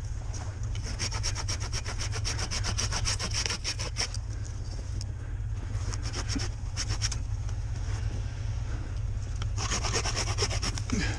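Hand saw cutting through brush or branches in quick, rasping strokes. It pauses about four seconds in, picks up briefly, and saws hard again near the end.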